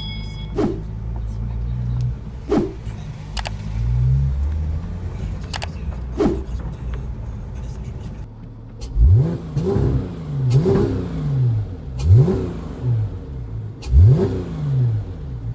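Porsche 911 GT3 RS's naturally aspirated flat-six running at a steady low note with a few sharp clicks, then blipped hard about five times in quick succession in the second half, each rev shooting up and falling away.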